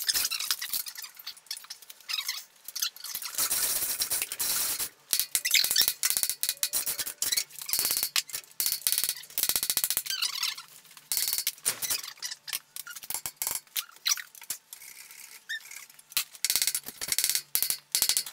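Chain hoist in use: its chains clinking and rattling, with squeaks and scattered knocks of metal as the cylinder of a power hammer is handled.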